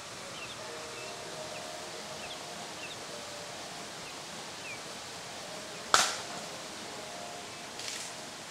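Outdoor ambience: a steady background hiss with faint, short high chirps, broken by one sharp knock about six seconds in and a softer rustle near the end.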